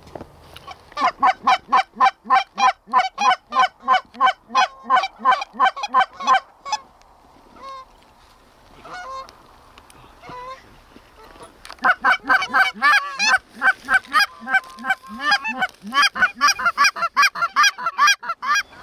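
Canada goose calls blown hard to geese flying over the decoys: two long runs of quick, even honks, about four a second, each lasting six or seven seconds, with a few faint scattered honks in the gap between them.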